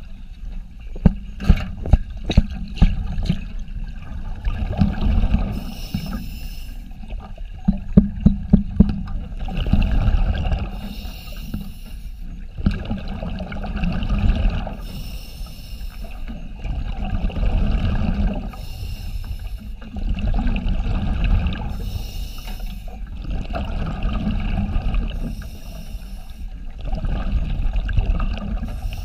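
Scuba diver breathing through a regulator underwater in a cage: a hiss on each breath in and a rumbling rush of bubbles on each breath out, repeating about every four seconds. Runs of sharp knocks come in the first three seconds and again around eight seconds.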